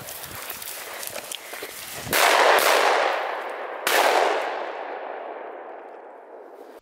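Footsteps brushing through heather and low scrub, then two loud shotgun shots about a second and a half apart, each ringing out and dying away slowly.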